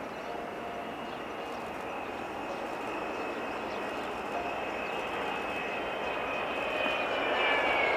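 Boeing 777 jet engines whining as the airliner comes in to land, growing steadily louder as it nears. Its high fan whine starts to drop in pitch near the end as it passes.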